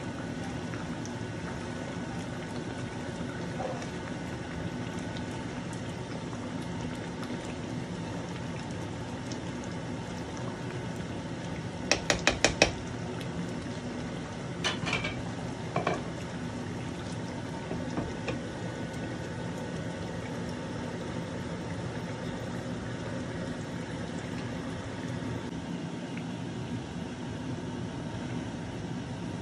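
Curry simmering in a frying pan on a gas hob under a steady background hum. About twelve seconds in comes a quick run of five sharp clatters of utensils against the pan, and a few lighter knocks follow over the next few seconds.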